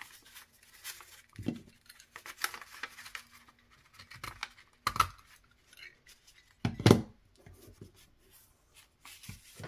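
Paper being handled and pierced with a hand hole-punching tool: scattered clicks and crackles, with a sharp snap about five seconds in and a louder, deeper thump about seven seconds in.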